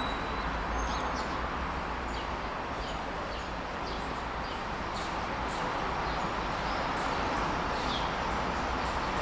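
Small birds chirping in short, high, often falling chirps, several times a second, over a steady rushing background noise.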